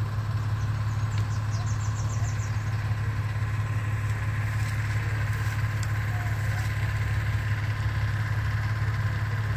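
A steady low mechanical hum under a light hiss. A quick run of faint high ticks comes about two seconds in.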